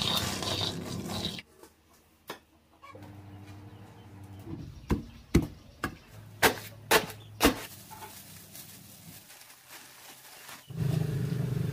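A wooden pestle pounding in a wooden mortar: six sharp thuds, about two a second. A short hiss comes before the thuds, and a steady low hum starts near the end.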